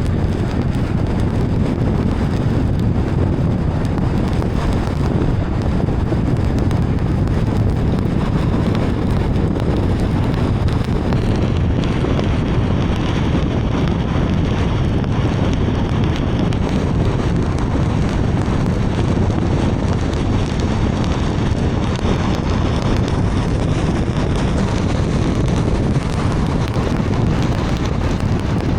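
Steady heavy rain and the road noise of a car driving through it: an even, unbroken rush, strongest in the low rumble.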